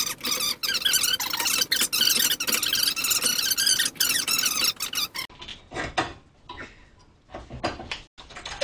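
A C-clamp's screw squeaks as it is turned against a front brake caliper to push the piston back, a dense run of high, wavering squeaks for about five seconds. Then come a few light metal clicks and knocks as the caliper is handled.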